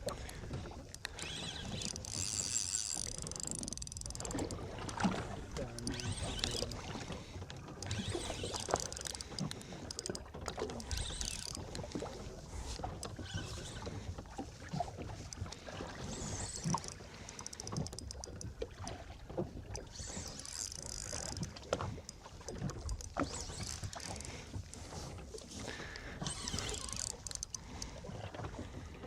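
Small fishing boat at sea: water slapping and splashing against the hull every few seconds, with wind on the microphone and scattered small knocks.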